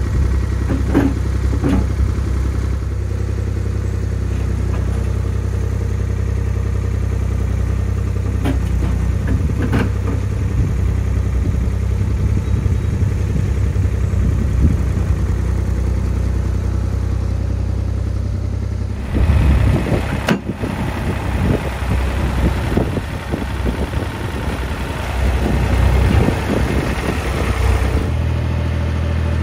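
Farm tractor engine running steadily as its front loader works, with a few sharp knocks. About nineteen seconds in, the engine sound turns rougher and rises and falls as the tractor moves off.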